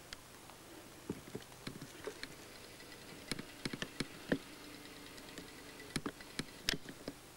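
Irregular sharp clicks and crunches of footsteps on stony ground, thickest in the second half.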